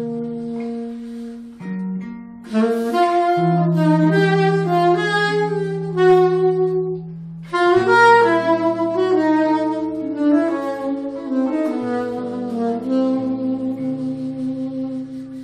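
Soprano saxophone playing a melodic line over an electric archtop guitar in a live sax-and-guitar duo. The music stops right at the end.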